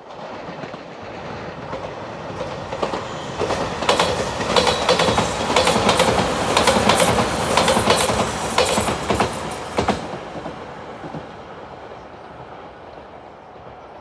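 Five-car electric limited express train passing close by: a rising rumble with rapid wheel clicks over the rail joints, loudest from about four to ten seconds in, then dropping off sharply as the last car goes by and fading away.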